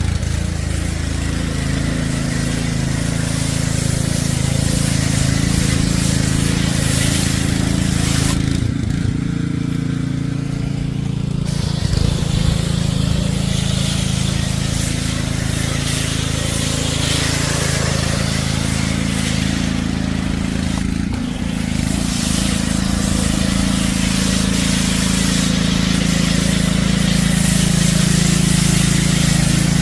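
Dewalt 3600 psi gas pressure washer running steadily with a loud hissing spray. The spray stops for a few seconds about nine seconds in, and again briefly around twenty-one seconds, while the engine keeps running.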